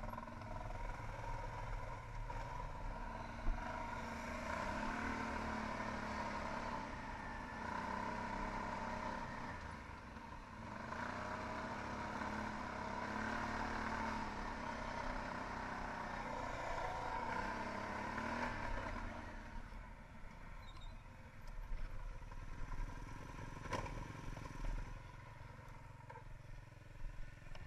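Arctic Cat 1000 XT quad's engine running on the move, its pitch rising and falling as the throttle is opened and eased. It drops quieter about twenty seconds in, with scattered knocks and clatter.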